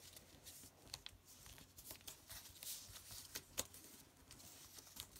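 Faint rustling of a sheet of paper being folded by hand, with a few soft clicks and taps as the fold is pressed down.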